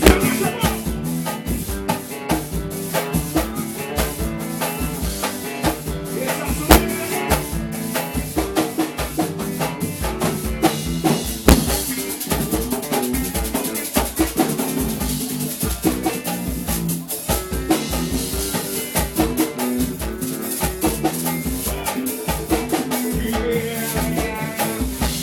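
A band playing a groove during a sound check: drum kit and hand percussion over bass notes, with a steady bass-drum beat about twice a second.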